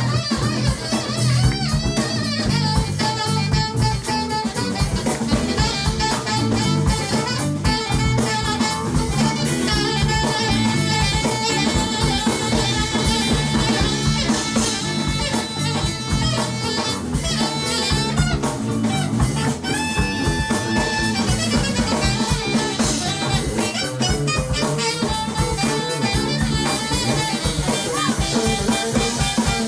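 Live band music with drum kit, rimshots and held melodic notes, in a jazzy style.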